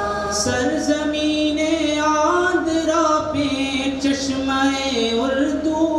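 A mixed group of men and women singing an Urdu anthem together into microphones, in long held notes that step up and down in pitch.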